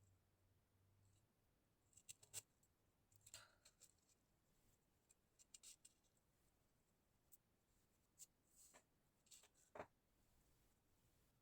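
Near silence with a dozen faint, scattered clicks and short rustles, the sharpest about two seconds in and near the end.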